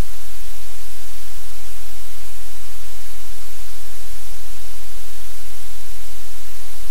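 Steady, loud static-like hiss with a deep rumble beneath it, unchanging throughout.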